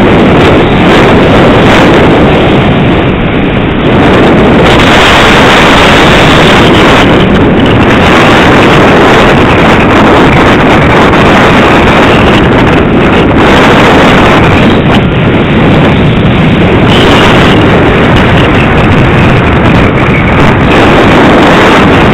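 Loud, steady wind noise buffeting the microphone of a camera riding on a Multiplex EasyStar II foam model plane in flight. A faint high whine joins in during the last few seconds.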